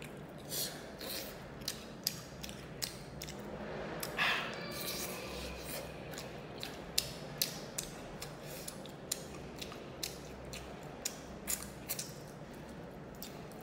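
Close-up eating sounds of spicy fried fish being chewed: many sharp, irregular crunches and wet lip smacks, with one louder breathy sound about four seconds in.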